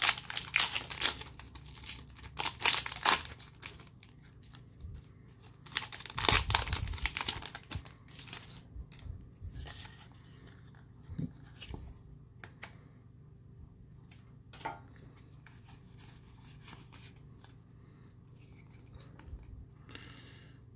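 Foil Pokémon booster pack wrapper being torn open and crinkled, in loud sharp bursts over the first three seconds or so and again about six seconds in. After that come softer rustles and clicks as the cards are handled.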